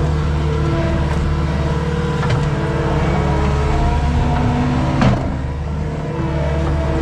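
Skid steer's diesel engine running steadily as it works. About five seconds in there is a sharp knock, and the engine note drops briefly before picking back up.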